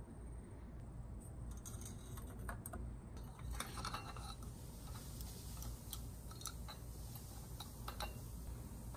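Scattered light metal clicks and taps as a Yoshimura spark arrester insert is slid into the end cap of a stainless RS-3 muffler and seated, with a few more clicks near the end as a hex key goes into its retaining bolt.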